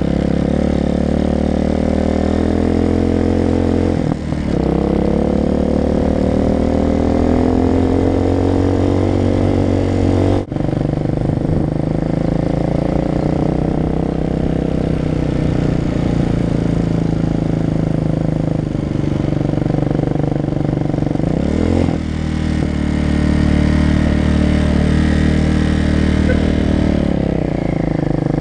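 Motorcycle engine under way, its pitch climbing as it accelerates and dropping briefly at gear changes about 4, 10 and 22 seconds in, then falling as it slows near the end.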